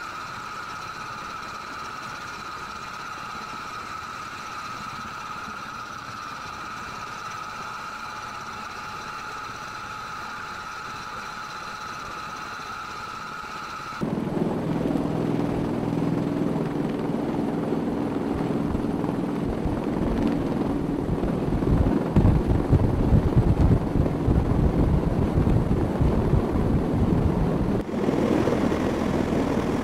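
A steady, high-pitched turbine whine with several held tones. About fourteen seconds in it cuts abruptly to the louder, lower, pulsing rotor noise of a V-22 Osprey tiltrotor hovering, its proprotors and turboshaft engines running.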